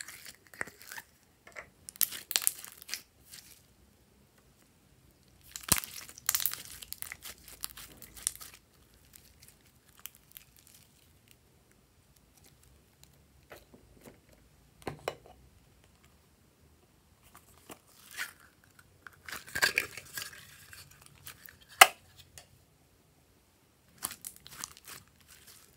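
Hands squishing and folding glossy glitter slime: bursts of many small sticky clicks and crackles with short quiet pauses between, and one sharper click near the end.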